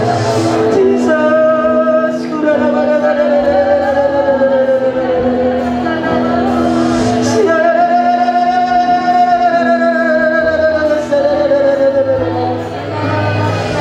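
Worship song sung by a small group of singers over keyboard accompaniment, with long held notes that rise and fall slowly.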